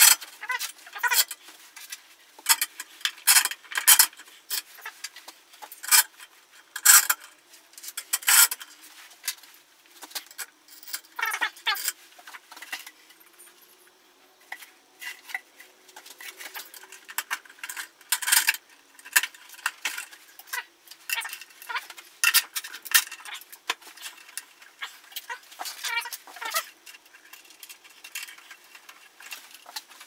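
Irregular sharp metal clinks and clicks of threaded rods, tube spacers and nuts being handled and fitted onto a metal mounting plate.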